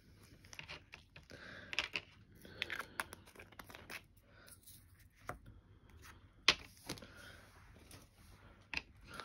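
Small plastic bags of diamond-painting drills rustling, crinkling and being torn open, with scattered sharp clicks. The loudest click comes about six and a half seconds in.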